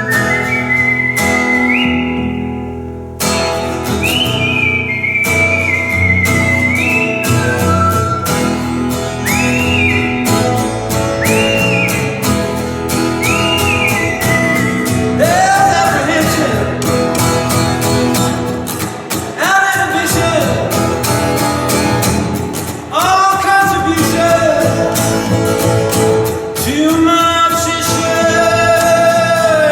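Live acoustic band music: strummed guitar under a high lead melody whose notes scoop up into pitch and are held, joined by lower sliding notes about halfway through.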